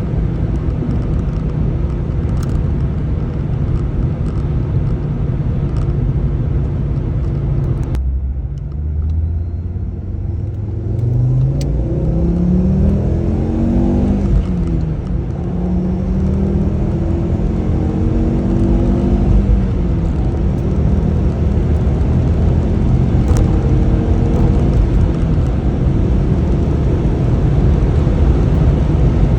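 Ford Focus ST225's turbocharged 2.5-litre five-cylinder engine on the road. It runs steadily at first, then drops away suddenly about eight seconds in. The revs climb, fall briefly at a gear change, and climb again before settling into a steady cruise.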